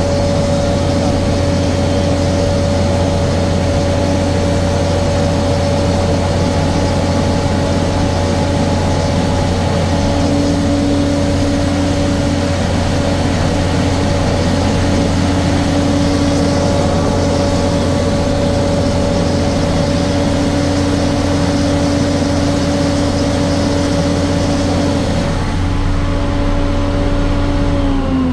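Engine and blower fan of a wide-area mist-blower crop sprayer running steadily at working speed while blasting pesticide mist. Right at the end its pitch starts to fall as it is throttled down.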